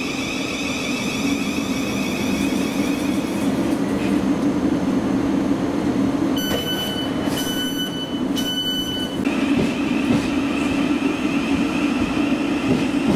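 Thameslink electric train standing at the platform, its equipment giving a steady hum and high whine. About six seconds in come three beeps, each about a second long: the door-closing warning before departure.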